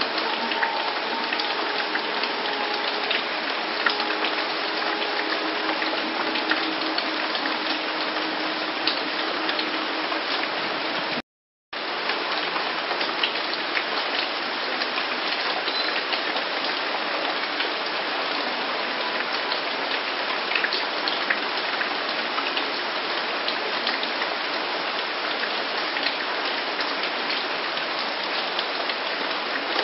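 Steady rain falling, dense with small individual drop ticks. Faint steady tones sit under it for the first several seconds, and the sound drops out completely for about half a second around eleven seconds in.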